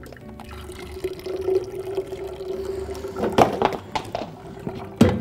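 Blended lemon juice pouring and dripping through a fine wire-mesh strainer into a container, with a few sharp knocks about three and a half seconds in and again near the end.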